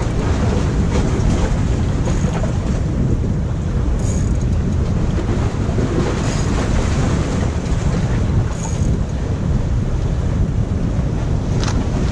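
Wind buffeting the microphone with waves washing against the jetty rocks: a steady, loud, low rumble of noise.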